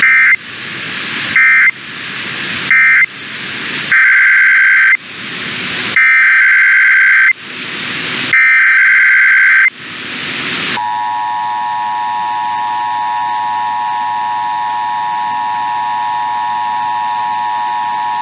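Emergency Alert System data bursts over radio hiss: three short end-of-message bursts, then three longer SAME header bursts about two seconds apart. About 11 seconds in comes the steady two-tone EAS attention signal.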